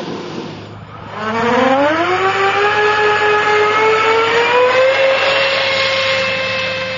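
Electric ducted-fan motor of a radio-controlled F-15 jet spooling up for the takeoff run: a whine that starts about a second in, rises in pitch over the next few seconds, then holds high and steady.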